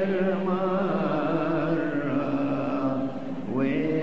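A man singing a slow, unaccompanied Arabic hymn in a chant-like style, drawing out long notes with a wavering vibrato. About three and a half seconds in, the note breaks off briefly and a new phrase slides upward.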